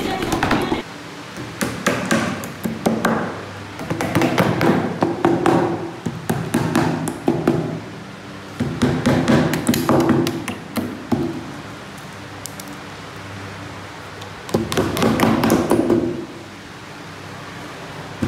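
Small hammer tapping on wood in quick runs of light blows, four bursts with short pauses between them, as pieces of the dressing table are fixed.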